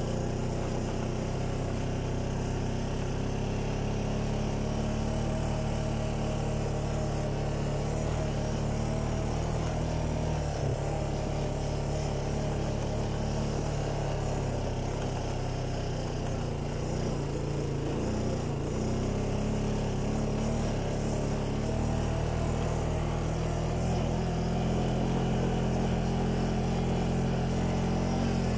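ATV (quad bike) engine running steadily as the machine rides along a dirt trail, with small changes in pitch partway through and slightly louder near the end.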